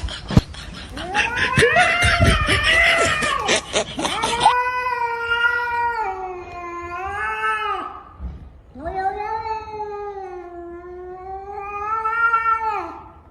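Cat yowling in long, drawn-out, wavering caterwauls. The first few seconds are a jumble of overlapping yowls and sharp clicks; then come two long yowls, each bending up at the start and dropping away at the end.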